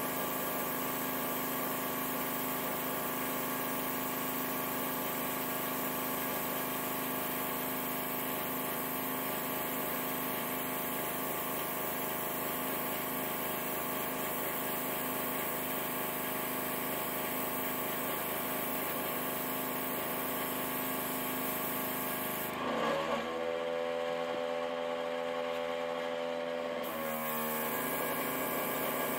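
Small airbrush compressor running with a steady hum, under the hiss of air spraying from the airbrush. About 23 seconds in the hiss stops for some four seconds while the hum shifts in pitch, then the spraying resumes.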